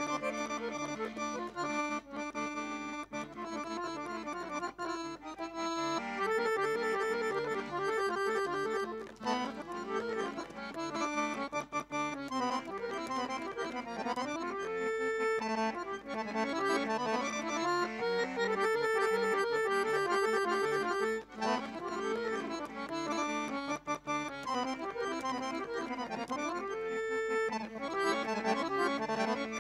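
A Dallapè piano accordion played solo: a fast piece of quick running notes over bass and chords, growing louder about six seconds in.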